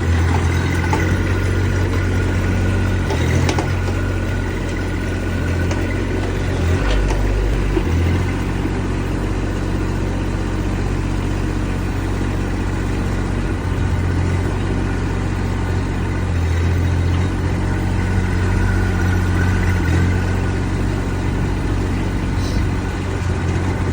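Kubota D902 three-cylinder diesel engine of a Bull EX20D mini excavator running steadily while the machine is operated, its note shifting slightly a few times. A faint high hydraulic whine comes and goes.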